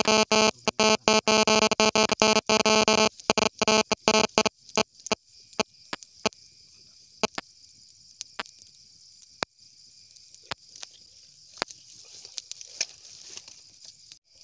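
Wood-and-grass campfire crackling, with sharp single pops and snaps spaced out over a steady chorus of night insects. For about the first four seconds a loud, dense buzzing crackle covers everything.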